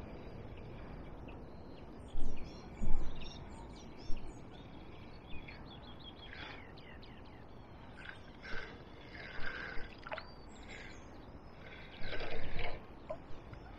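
Small birds chirping and singing over a steady outdoor background. A few short rustling bumps come about two and three seconds in, and a longer one comes near the end.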